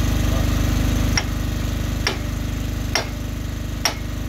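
Four hammer blows on metal with a bright ring, about one a second, over an engine running steadily that eases off slightly about a second in.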